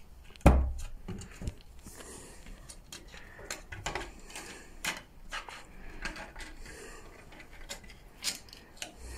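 A single thump about half a second in, then scattered light clicks and scrapes as a kitten scrambles and claws at rough wooden planks.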